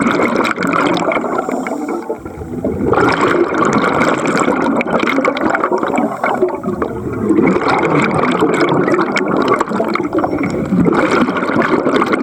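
Water bubbling and gurgling, busy with small crackles, dipping briefly about two seconds in before going on.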